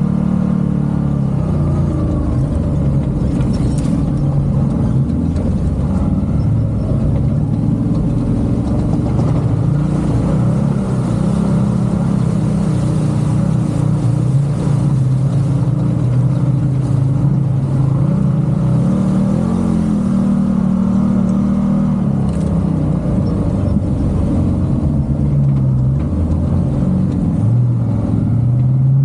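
A motor vehicle's engine running continuously, its pitch rising and falling with the throttle, with rumbling road noise underneath.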